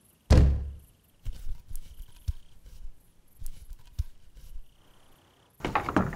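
A deep thud with a falling sweep about a quarter second in. Then a few quiet clicks and knocks as wooden tools are handled in a shed, with louder rustling and knocking starting near the end.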